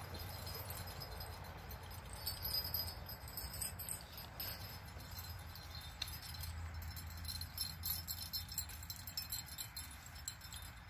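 Light metallic jingling and clinking a few times, over a steady low rumble of wind.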